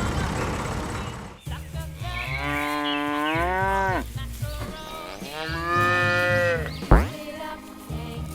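A cow mooing twice, two long calls that each drop in pitch at the end, over background music. A brief sharp downward swoop sounds near the end.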